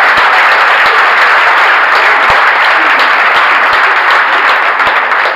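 Audience clapping, a loud, steady round of applause.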